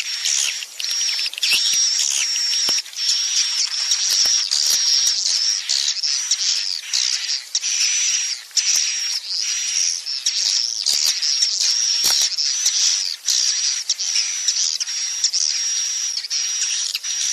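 Swiftlets' roosting calls, a dense, continuous high twittering and chittering of many birds over a steady high buzz, with occasional clicks. It is a lure recording played in swiftlet houses to make young edible-nest swiftlets settle and roost.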